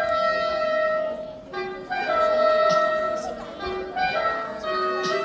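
Chamber ensemble music in which a woodwind plays a short lower note rising into a long held higher note, twice, then shorter notes near the end, over quieter accompaniment. The piece portrays a rooster as a morning alarm.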